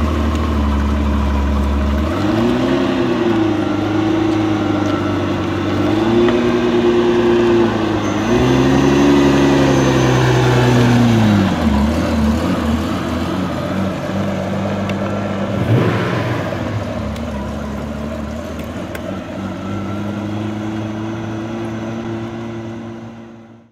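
Ferrari Testarossa's 4.9-litre flat-12 engine and exhaust as the car pulls away at low speed. It is blipped up and down twice in the first half, then runs steadily and grows gradually quieter as the car moves off, cutting away just before the end.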